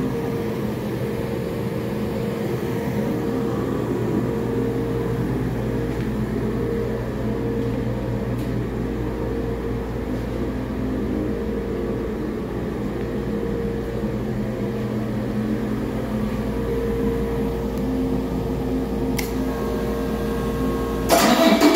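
2017 Volvo D13M inline-six diesel engine, a used 425 hp unit that the seller rates as running excellent, idling steadily on a test stand. Near the end the engine sound suddenly gets louder and higher.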